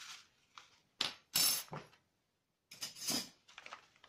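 A metal spoon clinking several times against a stainless steel saucepan of milk as fennel seeds are spooned in, with sharp, ringing clinks.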